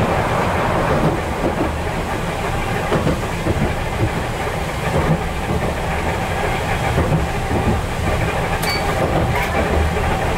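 Chikuho Electric Railroad 3000 series electric car running along the track, heard from inside the cab: a steady rumble of wheels on rails, with a couple of sharp clicks near the end.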